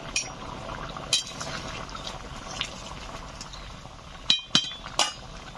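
Curry gravy simmering and bubbling in a pan, with sharp metal clinks of a spoon against the pan. Three louder clinks come close together near the end.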